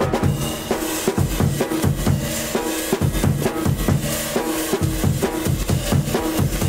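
Drum kit solo break, a fast run of kick and snare hits with cymbals, while held notes from another instrument sustain underneath.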